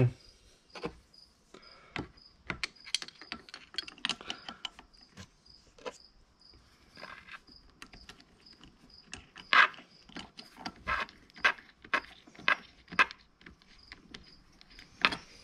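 Small metal clicks and taps of compressor parts being handled by hand, irregular and spread throughout, with the sharpest clicks about nine and a half seconds in and near the end: the new piston and cylinder sleeve of an ARB twin air compressor being fitted while its fastener is started by hand.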